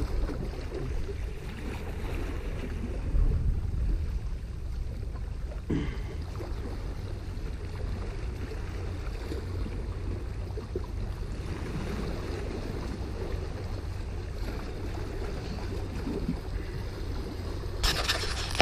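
Steady low rumble of wind on the microphone, with waves washing against rocks. Near the end, a brief burst of rustling, handling noise.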